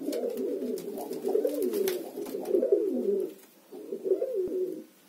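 Domestic pigeons cooing: low, warbling coos that overlap, with a short break about three seconds in before they resume.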